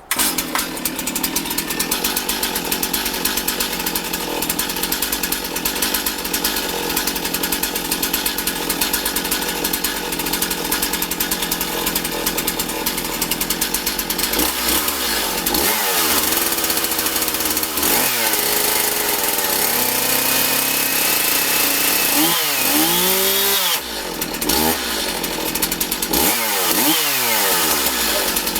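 Stihl MS 270 two-stroke chainsaw running, starting abruptly and holding steady at first, then revved up and down several times in the second half.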